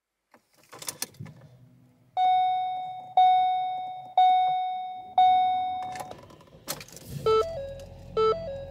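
Key clicking in the ignition of a 2015 Ford Escape, then the instrument cluster sounds four single chimes a second apart, each fading out. About two-thirds of the way in a sharp click is followed by a low rumble, the starter cranking slowly on a weak, low-voltage battery as the dash blinks out, while a stepped multi-tone warning chime repeats about once a second.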